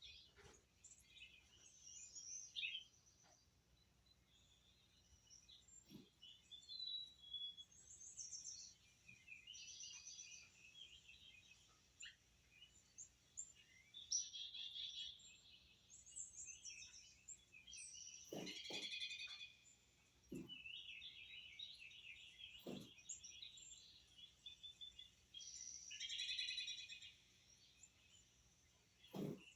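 Birds chirping and trilling, faint but continuous, with a handful of soft clicks or knocks.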